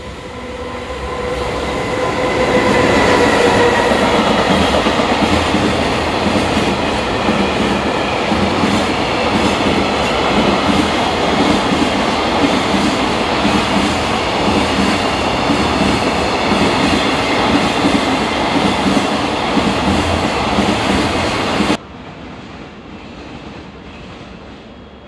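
A train passing close by, building to a loud steady rumble with a regular clickety-clack of wheels over rail joints. It cuts off suddenly near the end.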